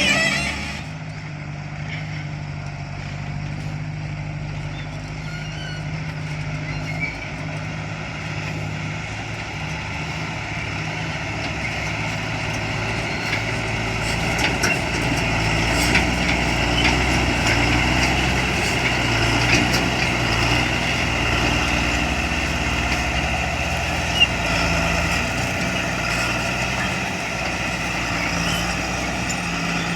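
Heavy diesel engine running steadily, getting somewhat louder over the first half, with one sharp knock about three quarters of the way through.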